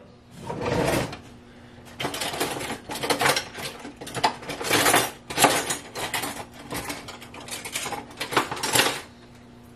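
Metal cutlery clattering and clinking in a run of irregular bursts, as someone rummages through kitchen utensils for a knife, then stops.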